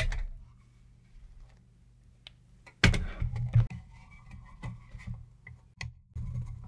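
A metal wire cooling rack is set down on a metal canelé mold tray with a clank. About three seconds in, the tray and rack are flipped over together with a loud metal-on-metal clatter, followed by several lighter knocks and clinks as the upturned mold settles on the rack.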